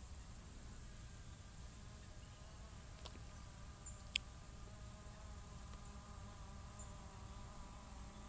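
Faint outdoor ambience: a high, thin insect-like buzz that breaks off and restarts about twice a second in the second half, over a faint steady hum and low rumble, with one short high chirp about four seconds in.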